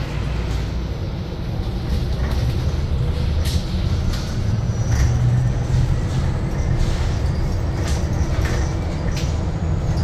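Cabin of a 2019 New Flyer XE60 battery-electric articulated bus under way: a steady low rumble of the ride with a thin whine from the electric traction motors, and occasional short rattles and clicks from the body.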